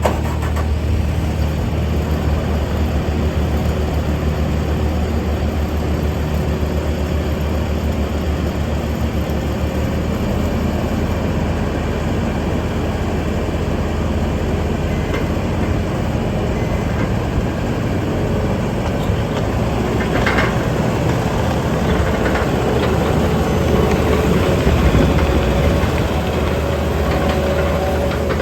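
Bobcat T740 skid steer's four-cylinder turbocharged D34 diesel engine running steadily with a deep hum, with a few sharp knocks about two-thirds of the way through.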